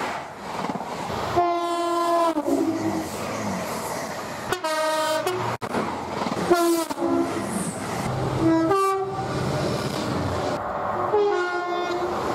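Train horns sounding about five times, several of them two-tone blasts that step from one note to another, over the running noise of trains. The sound breaks off abruptly between blasts.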